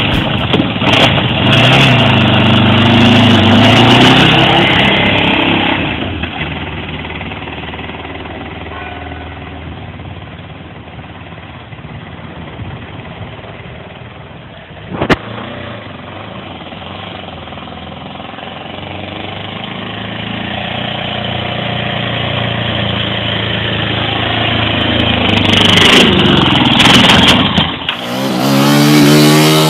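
Moto Morini Excalibur V-twin motorcycle exhaust: loud under acceleration at first, then fading to a distant drone, growing louder again and passing close near the end. A single sharp click about halfway through.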